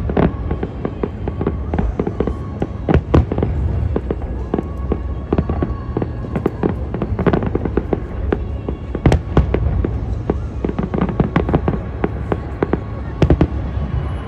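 Aerial fireworks shells bursting in rapid, irregular succession: many sharp bangs, some overlapping, over a steady low rumble.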